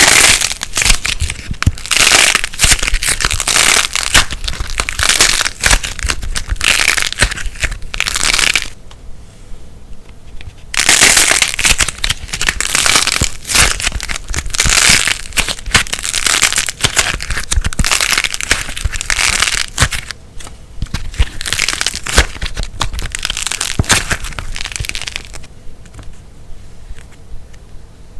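Slime mixed with light plasticine being squeezed and kneaded by hand, giving dense crackling and popping. The crackling comes in two long stretches, stops for about two seconds roughly a third of the way in, and turns quieter near the end.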